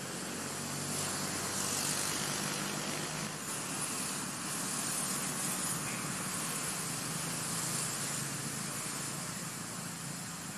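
Steady outdoor background hiss with a faint low hum beneath it, swelling slightly about a second in and then holding steady.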